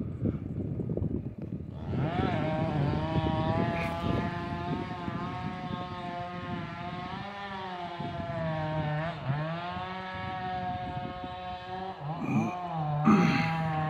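Chainsaw throttling up to full revs about two seconds in and cutting through a standing tree, its pitch sagging and recovering as the chain loads up in the wood, once about nine seconds in and again near the end. This is the felling cut just before the tree goes over.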